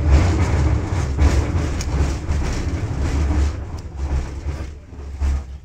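A tram running on its rails, heard from inside the car: a loud low rumble with wheel and rail noise, fading over the last couple of seconds.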